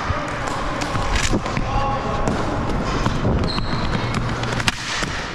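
Cosom floor hockey play: scattered sharp knocks of sticks and ball on the floor, a handful in a few seconds, over the faint calls of players.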